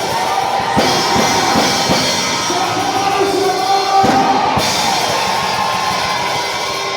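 Loud band music with a drum kit and a steady beat, with singing.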